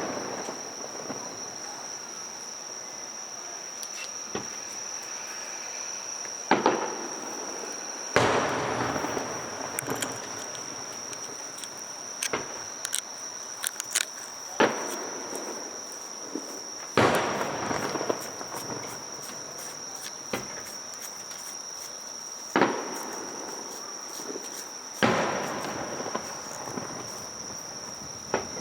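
Aerial fireworks shells bursting about ten times at irregular intervals, each bang trailing off in a long echo, with scattered crackling between bursts. A steady high-pitched trill runs underneath.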